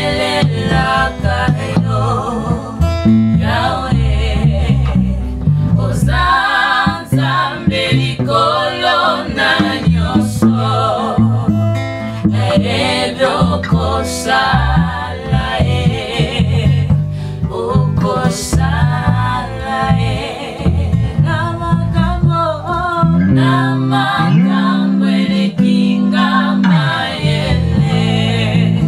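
A small group singing together, several voices in harmony, with an acoustic guitar strumming and an electric bass guitar playing a steady bass line.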